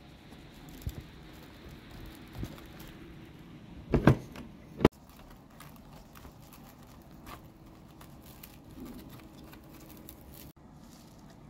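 Close-up handling of soft peeled, roasted eggplants on a tray: small rustles and taps as fingers open them, with a few sharp knocks, the loudest a quick cluster about four seconds in and a single knock about a second later.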